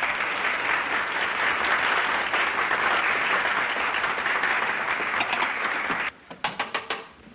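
Theatre audience applauding, which stops abruptly about six seconds in, followed by a quick run of sharp taps near the end.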